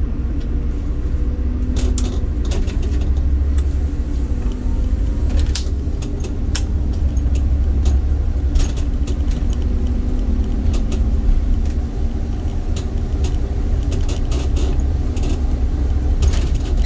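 City bus driving, heard from the driver's cab: a steady low engine drone and road rumble, with frequent short clicks and rattles from the cab.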